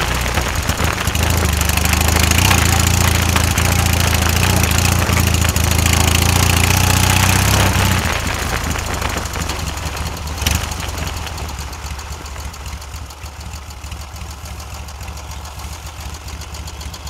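Dnepr K-750 sidecar motorcycle's side-valve flat-twin engine running under way, loud and steady. About eight seconds in its sound drops off abruptly to a much quieter low-speed run, with a single sharp click a couple of seconds later.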